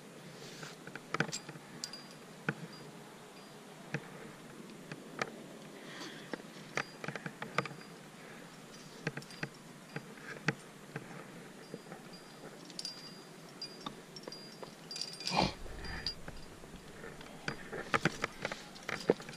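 Scattered light clicks and scrapes of climbing gear being handled, with a louder thump about fifteen seconds in.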